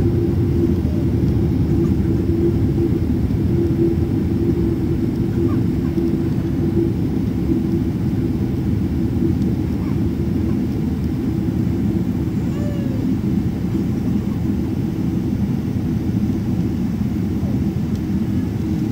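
Airliner cabin noise during the landing rollout: a steady low rumble of the engines and the wheels on the runway, easing slightly as the plane slows. A steady hum fades out after several seconds.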